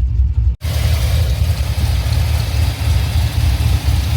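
A 6.0-litre LS V8 with a mild cam and long-tube headers idling with an uneven low pulse, misfiring because a failed ignition coil leaves cylinder 1 not firing. The sound cuts out briefly about half a second in.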